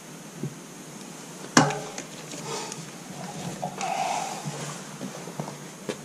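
One sharp crack about a second and a half in from the bottom bracket area of a YT Capra as its TRSr carbon crankset is turned, the creak that comes just before the pedals reach horizontal and that persists after the PF30 bottom bracket was changed; its cause, bottom bracket or crankset, is not yet found. A few quieter clicks and scrapes follow as the foot comes off the pedal.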